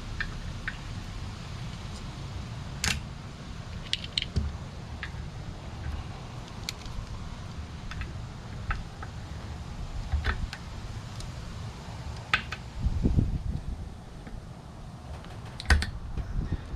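Scattered light metallic clicks and clinks of hand tools and small parts as a tire-pressure monitoring sensor is worked out of a wheel rim, over a steady low rumble.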